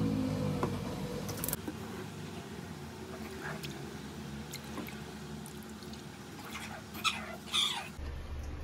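Milk pouring from a carton into a saucepan, trailing off in the first second or so, followed by faint scraping of a silicone spatula stirring the milk in the pot. Two short, sharper sounds come near the end.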